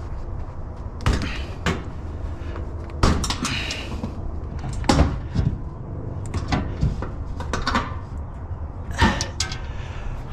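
Irregular knocks and clunks, about eight of them, over a steady low rumble.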